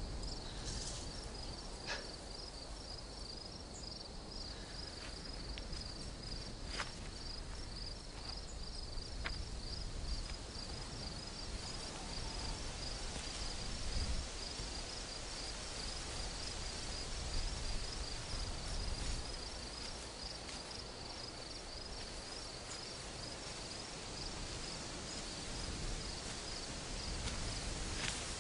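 Crickets chirping in evenly repeated pulses, a steady high-pitched night chorus over a low steady background, with a few soft clicks in the first ten seconds.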